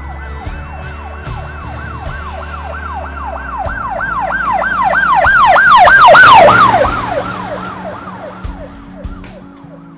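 Emergency vehicle siren cycling rapidly up and down, about three times a second, growing louder to a peak a little past halfway and then fading with its pitch dropping, like a vehicle passing by.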